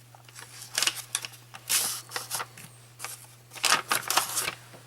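A mail package being opened by hand: several short bursts of crinkling and tearing, the loudest cluster near the end, over a steady low hum.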